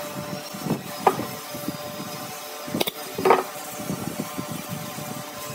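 Curved wooden strips knocking and clattering against a round wooden block as they are handled and fitted by hand. A few sharp wooden knocks stand out, the loudest about three seconds in, over a steady low background noise.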